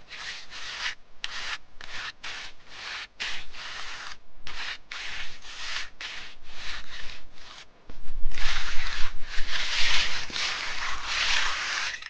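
Hand float scraping over the surface of a wet concrete slab in short back-and-forth strokes, about two or three a second. From about eight seconds in the strokes run together and get louder. The float is working water into the surface to bring up the cream.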